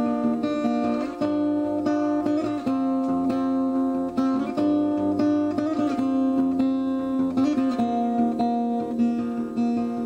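Instrumental music with held, ringing chords that change every second or two.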